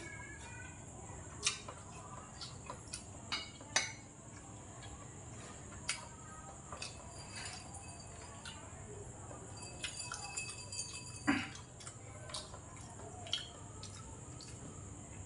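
Tableware clinking: a spoon and chopsticks tapping against bowls in a few scattered sharp clicks, then a cluster of ringing glass clinks about ten to eleven seconds in as a drinking glass is handled.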